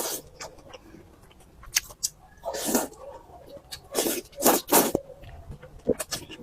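Close-up eating sounds of flat noodles: several wet slurps with smacking mouth clicks in between, the loudest slurps past the middle.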